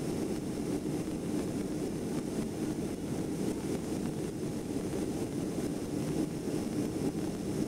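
Steady cabin noise inside a Boeing 757 after takeoff: the low, even rush of its twin turbofan engines and the airflow past the fuselage, heard from a window seat over the wing.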